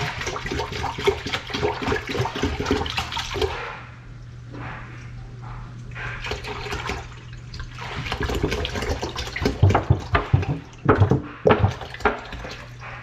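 Milk pouring from a gallon plastic jug into a stainless steel Instant Pot inner pot, splashing and gurgling. The pour eases off about four seconds in, then grows louder and more uneven again toward the end as the jug is tipped up.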